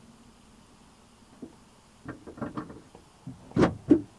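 Quiet car cabin, then a run of soft clicks and knocks from about halfway, with two sharper, louder knocks near the end.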